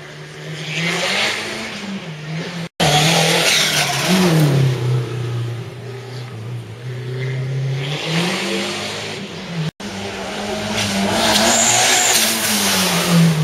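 Small rally hatchbacks racing through a cone slalom, engines revved hard, the pitch climbing and dropping again and again with throttle and gear changes. The sound drops out completely for an instant twice, about three and ten seconds in.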